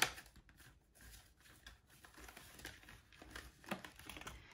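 Faint rustling of paper cash envelopes and bills being handled in a ring binder, with a couple of light ticks.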